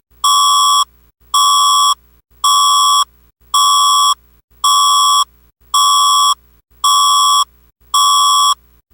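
Philippine emergency alert (EAS) tone: an electronic beep repeating at an even pace about once a second, each beep about half a second long, nine in all.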